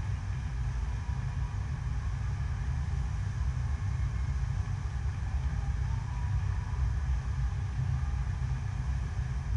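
Steady low rumble of water being pumped over an artificial sheet-wave surf machine, the flow rushing without a break.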